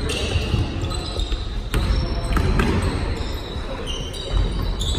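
A basketball bouncing on a hardwood gym floor, with several sharp bounces and sneakers squeaking in short, high chirps as players run.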